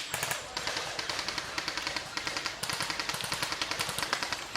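Airsoft electric guns firing long, rapid automatic bursts, a fast run of sharp clicks with no real pause: suppressing fire on an opponent.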